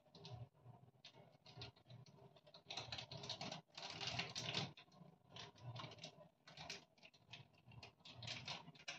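Faint, irregular light clicks, taps and rustles of hands and utensils working at a steel cooking pot on a gas stove, while instant noodles are being put on to cook.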